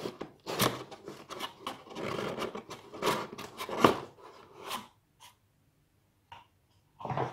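A cardboard cover being slid and lifted out of a cardboard box, scraping and rubbing against the box, for about five seconds. After that it is mostly quiet, with a few light taps and a short handling noise near the end.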